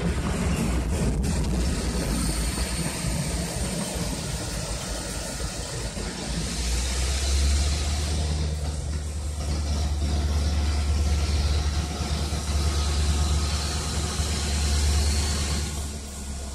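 Steady low engine rumble, heavier in the low end from about six seconds in.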